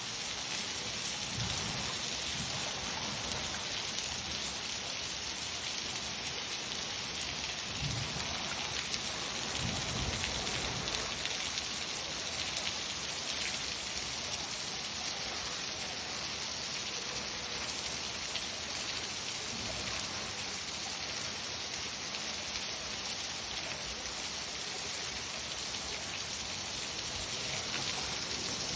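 Steady, heavy rain falling on a surface, an even hiss with no break. A few low rumbles of thunder swell under it about eight and ten seconds in and again near the end.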